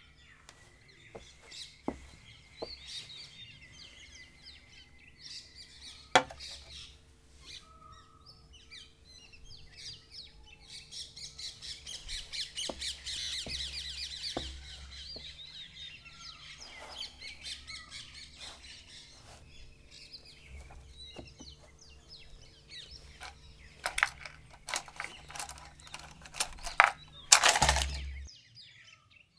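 Small birds chirping and twittering, busiest in the middle, over a faint steady hum. A single sharp knock about six seconds in, and a cluster of sharp clicks and knocks near the end with one short loud rustling burst.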